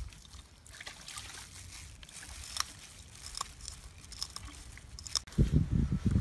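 Open wood fire crackling, with scattered small pops and snaps. A louder low rumbling sound in uneven pulses starts about five seconds in.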